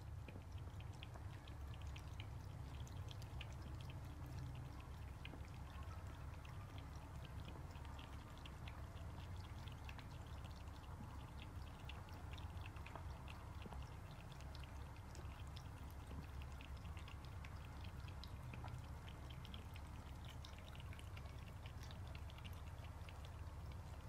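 Faint, rapid wet clicks and smacks from kittens' mouths, scattered throughout, over a low steady rumble.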